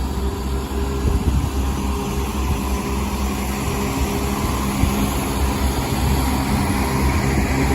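CrossCountry Class 170 Turbostar diesel multiple unit's underfloor diesel engines running with a steady low hum as the train pulls out.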